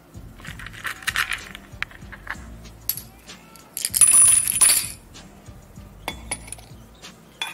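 Light background music with small handling sounds on top. There is a short rustling clatter of tiny shells early on and a louder rough scraping about four seconds in. Near the end come sharp clicks of metal tongs against a small ceramic crucible.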